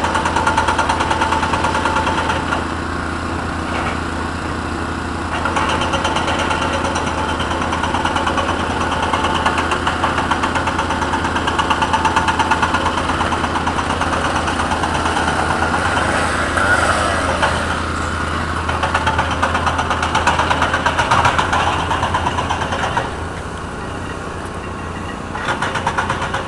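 Cat 320 excavator's diesel engine running with a fast, even pulsing, swelling and easing as the machine works. It drops quieter twice, a few seconds in and again near the end.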